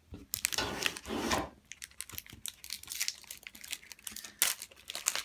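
Foil Pokémon booster pack wrapper crinkling as it is handled and torn open. A dense crackling burst in the first second and a half is loudest, followed by scattered crinkles and clicks.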